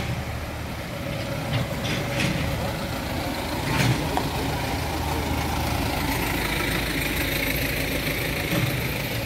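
Small dump truck's engine idling steadily, with a few short knocks in the first seconds.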